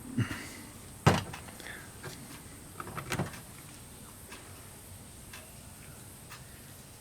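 A few sharp knocks and clicks from brake master cylinder parts and tools being handled on a workbench: the loudest about a second in, a small cluster around three seconds, and faint ticks between.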